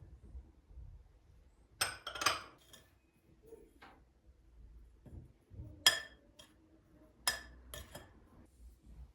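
Kitchen dishes and utensils clinking and knocking: a quick cluster of clinks about two seconds in, then single sharp, ringing clinks near six, seven and eight seconds.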